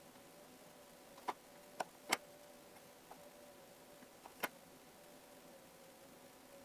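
A few faint, sharp clicks and taps, about four spread over several seconds, from small food pieces and fingers handling things on a plate or tray, over a faint steady hum.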